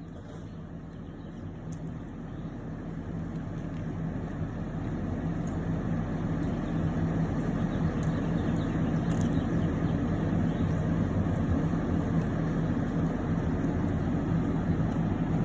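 A vehicle engine running with a steady low hum. It grows louder over the first several seconds, then holds steady.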